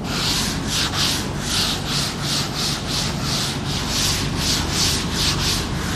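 A duster wiped briskly back and forth across a chalkboard, erasing chalk writing: an even run of rubbing swishes, about two to three strokes a second.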